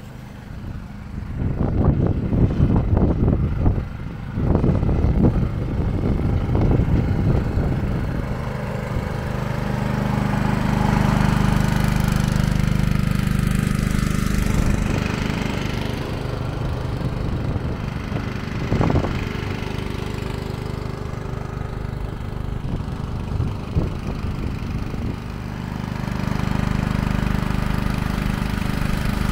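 Engine-driven water pump running steadily at constant speed, pumping water out of the flooded culvert into the canal. Loud irregular rumbling fills the first several seconds, and there is one short knock about 19 seconds in.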